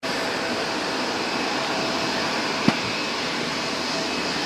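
Steady jet engine noise from a Boeing 787-8 airliner, an even rushing hiss with a faint steady tone in it. A single sharp click comes a little past halfway.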